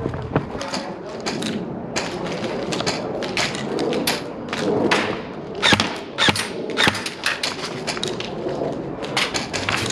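Irregular sharp clicks and thuds over a noisy background, several coming close together a little past the middle.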